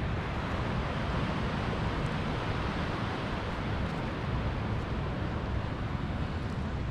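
Steady outdoor wind noise with a constant low, fluttering rumble on the microphone, mixed with the wash of ocean surf.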